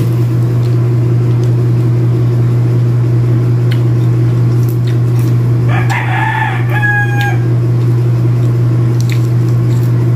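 A rooster crows once about six seconds in, a call of about a second and a half that ends on a held note. It sounds over a steady low hum.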